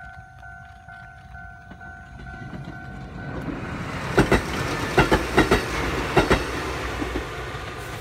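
Kotoden 1080 series electric train approaching and running past on jointed track, its rumble building until the wheels clack over the rail joints in quick pairs from about four seconds in. Before the train arrives a level crossing alarm dings steadily, about two or three times a second.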